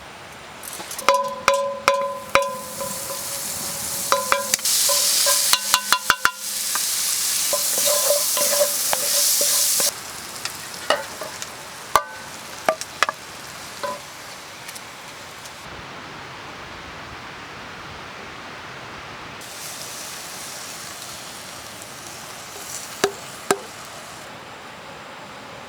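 Food sizzling in a pan while it is stirred, with clinks and knocks of a utensil against the metal pan. The sizzle stops suddenly about ten seconds in, leaving a few scattered clicks.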